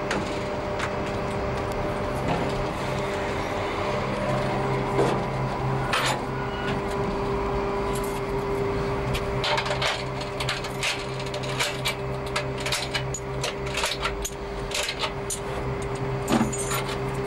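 Steady mechanical hum with two held tones, the higher one growing stronger about a third of the way in. From about halfway come many sharp clicks and knocks as equipment in a metal trackside cabinet is handled.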